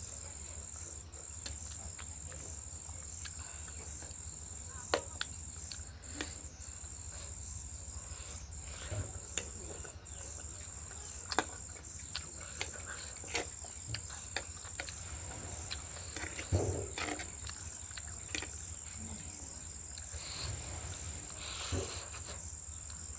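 A steady high-pitched insect chorus, typical of crickets, runs behind scattered short clicks and smacks from someone eating noodles.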